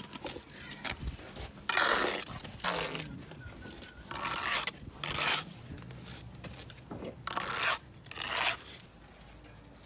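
Steel trowel scraping wet mortar, cutting off the excess squeezed from the bed joint as a brick is laid. About six short scrapes with gaps between them.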